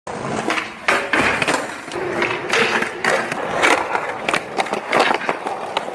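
Skateboard rolling on pavement, with a string of sharp clacks and knocks as the board strikes the ground over and over.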